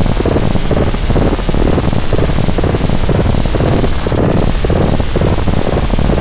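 3D-printer G-code turned into an audio signal: the soap dish's toolpath played as the X and Y channels that draw its outline on an oscilloscope in XY mode. It makes a loud, buzzing electronic drone that flutters irregularly several times a second.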